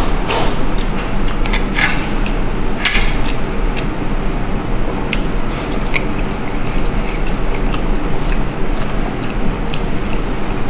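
Eating with the hand: chewing and small sharp mouth and finger clicks, the two strongest about two and three seconds in, over a steady loud background rumble.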